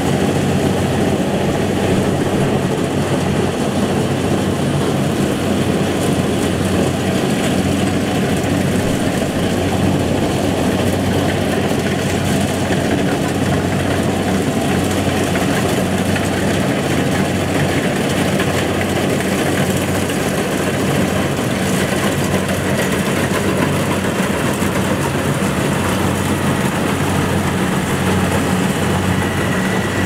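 Rice combine harvester's diesel engine running at a steady, unchanging pitch, with a dense mechanical noise over it.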